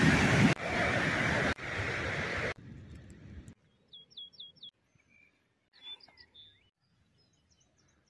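Fast-flowing stream rushing over rocks, loud and stepping in level at editing cuts before stopping abruptly about three and a half seconds in. Then small bird chirps: a quick run of four high, falling notes, followed by a few scattered calls.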